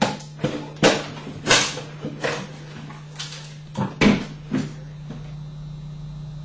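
A run of about ten sharp, irregular knocks and bangs from hand work on the dead oak trunk and the wooden ceiling around it, stopping a little over four seconds in. A steady low hum runs underneath.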